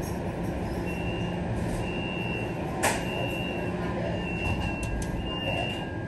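Steady low rumble of an MBTA Green Line train standing at an underground station, with a series of short high electronic beeps, about one a second, and a single sharp clack about three seconds in.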